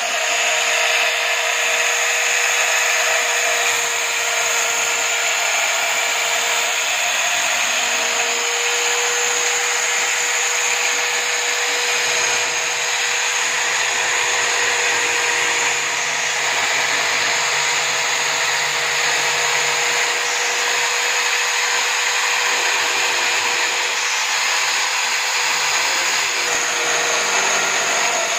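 Electric drill running steadily in a drill stand, used as a sanding machine with a rolled-sandpaper drum in its chuck; a constant motor whine with the rasp of sandpaper against the edges of a wooden board.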